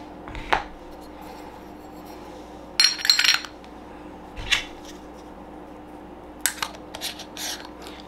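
Metal parts of a Wacaco Picopresso portable espresso maker clinking and clattering as they are handled and taken apart, in short bursts: one just after the start, a cluster about three seconds in, and more near the end. A low steady hum lies underneath.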